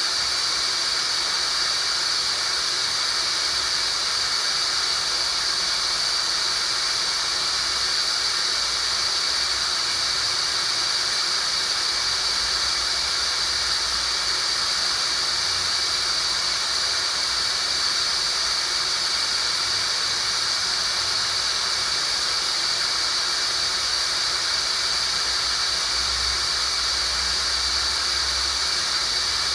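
Synthesized tinnitus sound-therapy signal: a steady, high-pitched whistling band over an even hiss, unchanging throughout.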